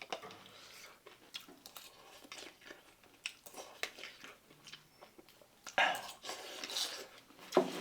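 Close-up chewing and crunching of snack food: many small irregular crunches, with a louder crunch about six seconds in and another near the end.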